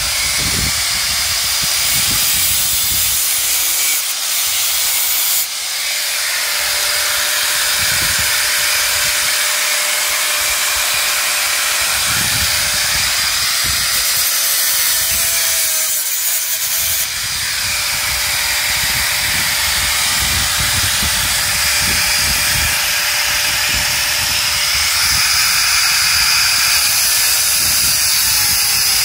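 Angle grinder with a cutting disc cutting through a moped's metal frame: a steady motor whine under a harsh hissing screech from the disc biting the metal. It lets up briefly a few times as the disc is repositioned.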